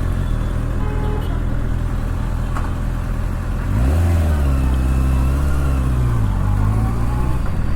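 Kawasaki ZX-6R's 636 cc inline-four engine running as the motorcycle is ridden; the revs rise about four seconds in, hold for a couple of seconds, then drop back.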